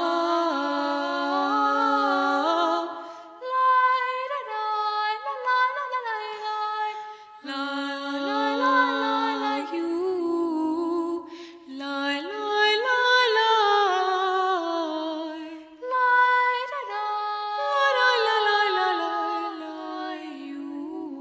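Background music: slow, sustained, voice-like notes in phrases that start afresh about every four seconds.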